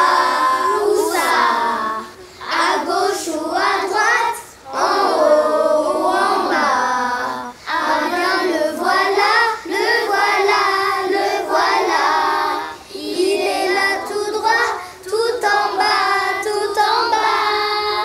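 Children singing a song, in phrases of a couple of seconds broken by short pauses.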